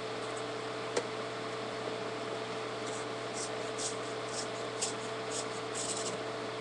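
Scissors and white hockey tape being handled: one sharp click about a second in, then a run of short, faint crackles from about three seconds in. A steady hum and hiss sits under it all.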